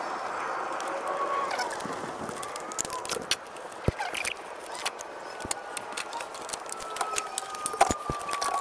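Hand tools clicking and clinking on metal as the throttle body is unbolted from a Honda Odyssey engine. Through the second half a faint tone slowly falls in pitch.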